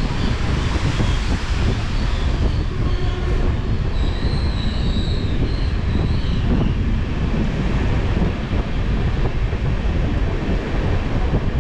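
Steady rumble of a moving passenger train's wheels on the rails. A high-pitched wheel squeal rides over it through the first half or so, loudest around four to six seconds in, then fades out.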